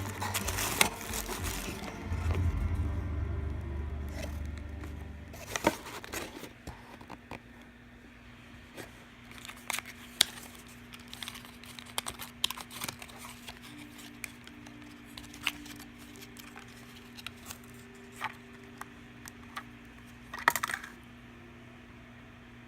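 Packaging being handled and opened, with scattered clicks, rustles and crinkles of box and paper and one louder crinkling burst near the end, over a faint steady hum. Music plays for the first few seconds.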